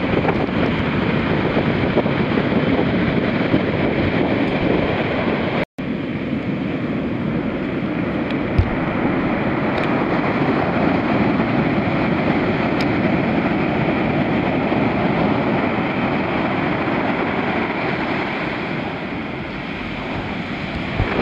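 Heavy shorebreak surf crashing and washing up the sand in a steady rush, with wind buffeting the microphone. The sound drops out for an instant about six seconds in.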